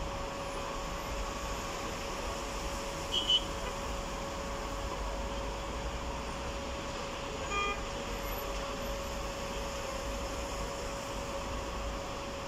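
Steady road-traffic noise with a constant hum, broken by a short, high double beep about three seconds in and a brief car-horn toot about seven and a half seconds in.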